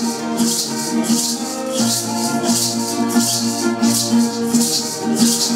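Music for a ceremonial dance: rattles shaken in a steady beat, about two to three shakes a second, over sustained pitched notes from a melody instrument.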